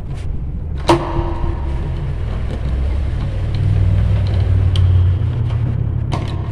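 Low engine rumble of a passing motor vehicle, building to a peak in the middle and easing off. Over it come light clicks and knocks of plastic electrical fittings being handled; the sharpest is about a second in.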